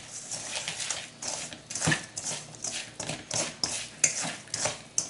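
Rubber spatula scraping and folding dried breadcrumbs into a moist deviled-crab binder in a stainless steel mixing bowl: irregular scraping and squishing strokes, with one sharper knock against the bowl about two seconds in.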